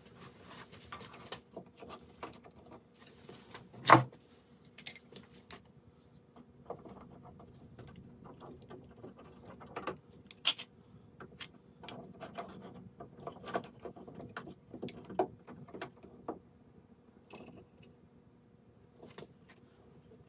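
Iron pipe clamps being fitted and screwed tight across a glued wooden cabinet: scattered metallic clicks and rattles of the clamp jaws and screw. One loud knock about four seconds in.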